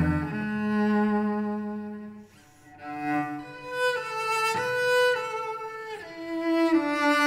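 Cello bowing a melody of held notes that change about once a second, falling briefly almost to silence about two seconds in.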